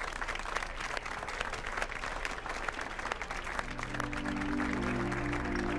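Audience clapping, with music coming in loudly about three and a half seconds in.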